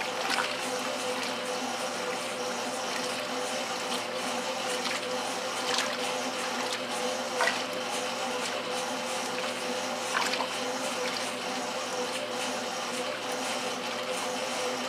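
1968 Kenmore top-loading washer agitating a load of clothes: water sloshing steadily around the agitator over a steady machine hum, with a few louder splashes.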